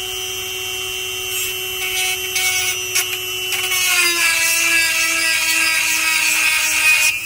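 Electric chainsaw sharpener with a 5/32-inch grinding bit running steadily, its grinding stone rasping against saw-chain teeth in short touches and then in longer passes. The motor pitch dips slightly under the load. The grinding stops abruptly near the end while the motor keeps running.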